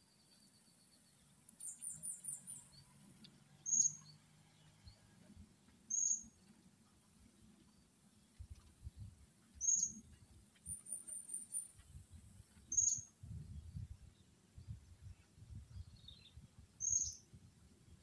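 Blue-crowned hanging parrot (serindit) giving short, sharp, very high-pitched call notes about every three seconds, five in all, with two brief fast high twitters between them. Low rumbling noise runs underneath in the second half.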